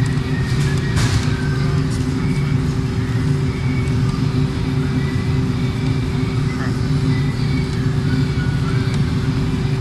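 C5 Corvette's V8 engine idling steadily.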